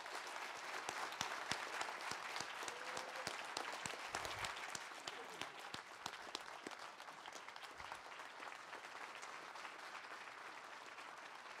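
Audience applause: many people clapping together, loudest in the first few seconds, then easing off a little.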